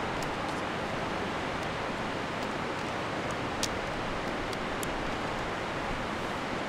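Steady rushing of river rapids, with several light clicks of tent pole sections being folded together during the first few seconds; the sharpest click comes a little past halfway.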